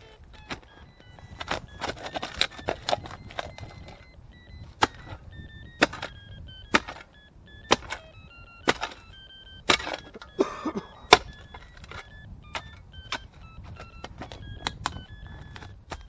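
Steel spade chopping and driving into wet, heavy soil again and again, with sharp strikes about once a second and scrapes of earth between them, digging down to a ferret in a rabbit warren.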